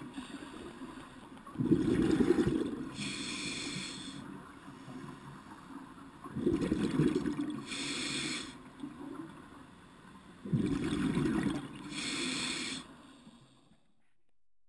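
A scuba diver breathing through a regulator underwater. Three bursts of bubbling exhalation alternate with shorter hissing inhalations, about one breath every four seconds, and the sound stops shortly before the end.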